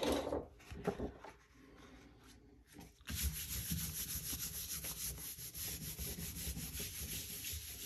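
A sheet of paper rustling as it is laid down, then about three seconds in, palms start rubbing steadily over the paper to burnish a glued paper weaving onto its backing sheet.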